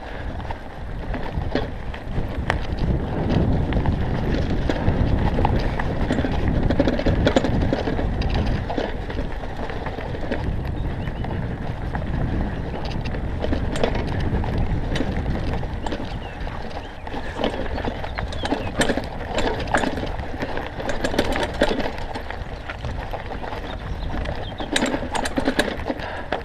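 Mountain bike riding fast down a stony dirt trail: wind rushes over the microphone, the tyres run over loose stones, and the bike rattles and clatters over the bumps. The clattering gets busier over the last several seconds.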